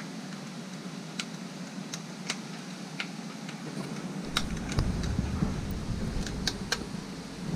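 Scattered light clicks and taps, about a dozen, spaced irregularly, over a faint low rumble that comes in about four seconds in.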